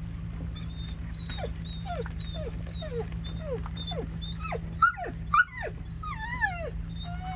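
Dogs whining and whimpering at a deer outside the van: a run of short falling whines about twice a second, then two louder, higher yelps about five seconds in and a longer wavering whine after them. A steady low hum runs underneath.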